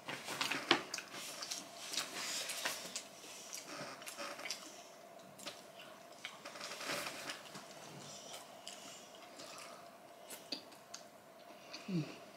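Close-up eating sounds: wet chewing and the squish of fingers working rice and curry in a bowl, as a string of small irregular clicks and sticky noises.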